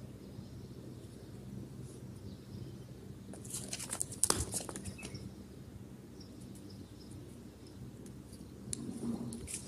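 A rooster's claws and beak clicking and scraping on floor tiles close to the microphone: a cluster of quick clicks about halfway through, and a few more near the end as it pecks at the tiles.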